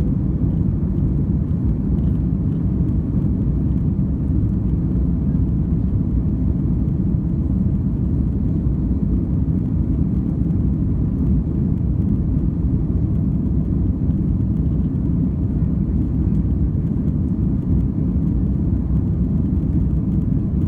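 Airbus A330-300 airliner running under power, a steady low rumble of jet engines and airflow that holds level without changing.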